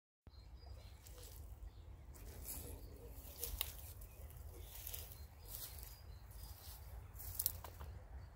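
Low wind rumble with irregular soft rustles in dry grass and reeds, two of them sharper, about three and a half and seven and a half seconds in.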